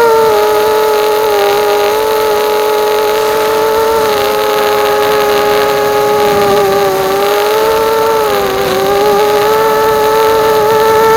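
Electric motors and propellers of a 210-size FPV racing quadcopter whining steadily in flight. The pitch wavers with the throttle, dipping briefly near the end before rising again.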